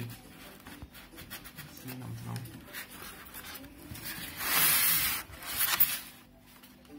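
Polystyrene foam packing insert rubbing and scraping against the cardboard box as it is pulled out, with a loud stretch of scraping about four and a half seconds in and a few sharp scrapes just after.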